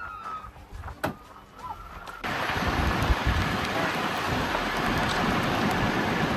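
An emergency vehicle siren trails off, then about two seconds in the sound cuts sharply to a loud, steady rushing noise.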